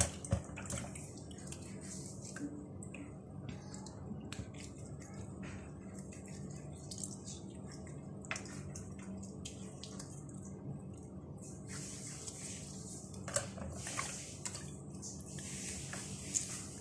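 Water splashing and dripping in a plastic basin as a whole fish is rubbed with lemon and washed by hand, with many small splashes and drips. The swishing grows louder and hissier in the last few seconds.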